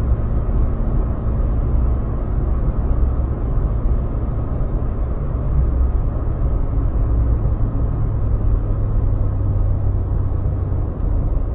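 Steady low rumble of a car cruising at motorway speed: road and engine noise heard from inside the moving car.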